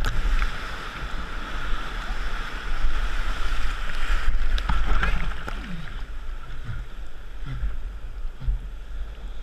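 Wind buffeting the microphone of a camera on a kayak in the surf, over a steady rush of breaking waves and water. A few short, falling cries come about halfway through.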